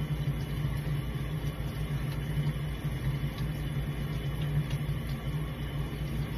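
A steady low mechanical hum with an even low pulse beneath it.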